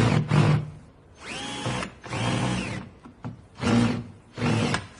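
Power drill running in several short bursts, its whine rising as each run starts and falling as it stops.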